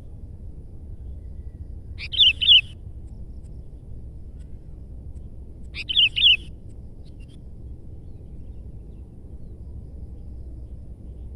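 Sooty-headed bulbul singing two short phrases about four seconds apart, each a quick run of three or four notes, over a steady low background rumble.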